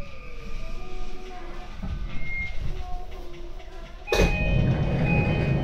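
E235 series electric train braking to a stop at a platform: the motors' falling whine fades into low rumbling. About four seconds in a sudden, louder spell of noise with ringing chime tones sets in as the doors open.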